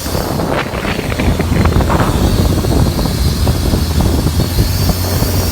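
Isuzu D-Max 3.0-litre four-cylinder diesel engine, fitted in a speedboat, running steadily and picking up about a second in.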